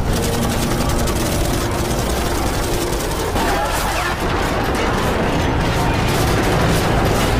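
War-film battle sound effects: rapid gunfire against a dense, continuous din of battle noise.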